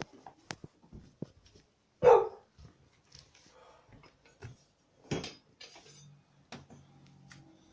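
A dog barks once, sharply, about two seconds in, with light clicks and knocks around it.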